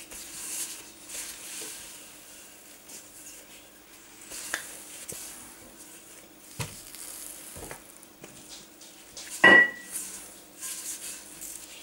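Wooden rolling pin working soft brioche dough on a countertop: a soft rustling friction with a few light knocks. About nine and a half seconds in comes one sharp knock with a short ring, something hard set down on the counter.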